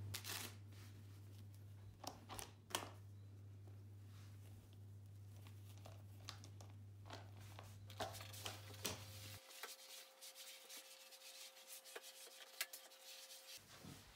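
Faint rubbing and rustling with scattered light clicks and taps. The loudest is a sharp tap about three seconds in, and the rustling grows busier over the last six seconds.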